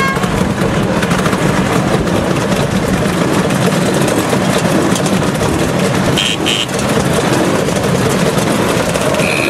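A crowd of motor scooters running together as a column rides off, a steady dense engine noise, with short horn beeps about six seconds in and again near the end.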